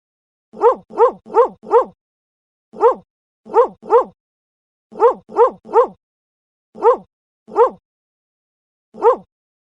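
Dog barking: short, sharp barks in quick groups of one to four, about thirteen in all, with dead silence between the groups.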